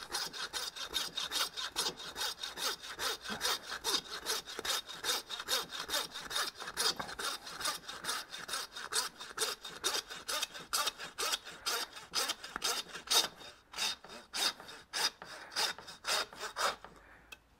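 Hand meat saw cutting through the spine bone of a beef short loin in quick, even back-and-forth strokes, about four a second, stopping near the end.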